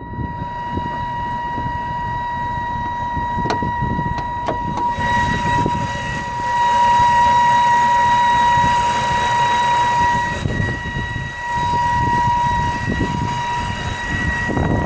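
BMW 328i E90's straight-six engine running with a loud, steady, high-pitched whine over its low running sound, the whine growing louder about halfway through, dipping briefly, then coming back. This is the unidentified noise that the owner says comes with the engine trying to bog down.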